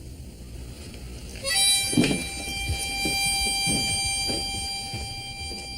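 Background music: a single held reedy note, harmonica-like, that comes in sharply about a second and a half in and sustains, with a few low thuds beneath it.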